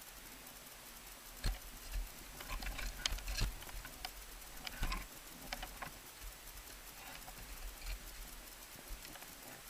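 Crampon points crunching and scraping on snow-covered ice in an irregular run of knocks and scrapes, busiest in the first half, as the climber is lowered down the ice face on the rope.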